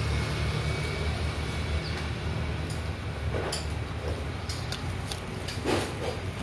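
Steady low engine rumble, with small crisp snaps and crunches from about halfway in as a sprig of fresh greens is torn apart by hand and bitten; the loudest crunch comes near the end.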